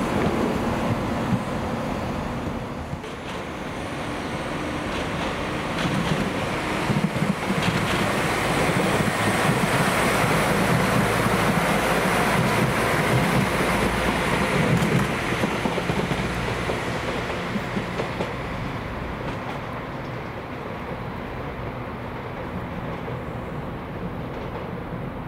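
Passenger train moving through a station. It swells to its loudest about halfway through and then fades, with a short run of sharp clicks as it builds.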